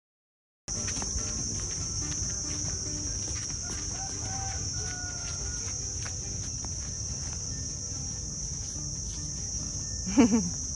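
Steady high-pitched buzzing of insects, starting abruptly about a second in, over a low background rumble.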